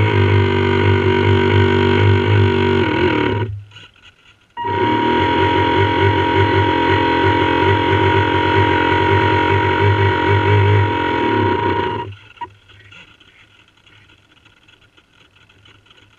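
RC model boat's motor running with a steady whine and low buzz, cutting out abruptly for about a second near the start and again for the last few seconds as the throttle is released.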